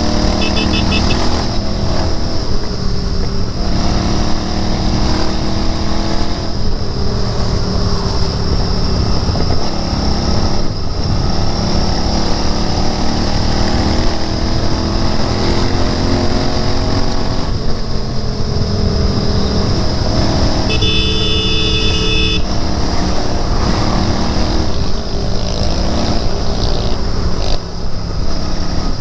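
Royal Enfield Interceptor 650's parallel-twin engine running under way, its pitch climbing and dropping back several times as it accelerates and shifts gears. A horn honks for about a second and a half about two-thirds of the way through.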